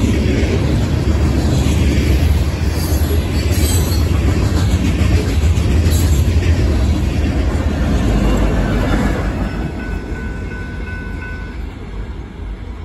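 Empty steel hopper cars of a freight train rolling past, wheels running and clattering on the rails with a heavy low rumble. The sound fades from about nine seconds in, as the end of the train draws away.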